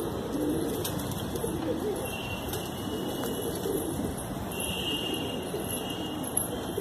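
Domestic pigeons cooing, with low, wavering coos repeating and overlapping throughout.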